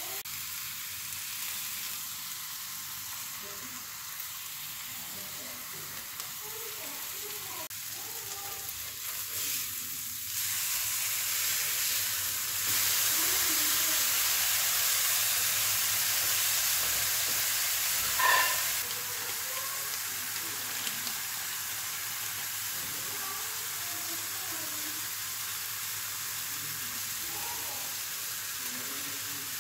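Ground-beef burger patties sizzling steadily in a cast-iron griddle. The sizzle gets louder for several seconds about halfway through, with one short sharp clink near the end of that louder stretch.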